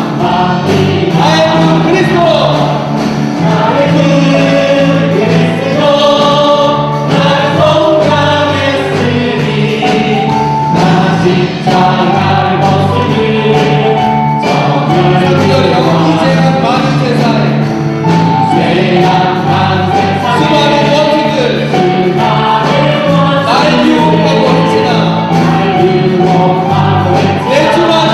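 Choir singing a sacred song with a steady instrumental accompaniment under the voices.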